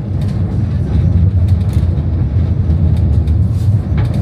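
Tram running on its rails: a steady low rumble with scattered light clicks and rattles.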